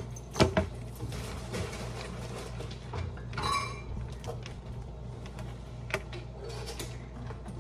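Kitchen-knife and cutting-board sounds: a couple of sharp knocks about half a second in as a chef's knife is set down on a wooden cutting board, another light knock near six seconds, over a steady low hum.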